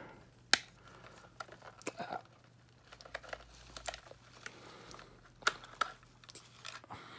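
Small hand nippers snipping the plastic ties that hold a doll in its packaging: scattered sharp clicks with light plastic rustling between them. The sharpest snaps come about half a second in and about five and a half seconds in.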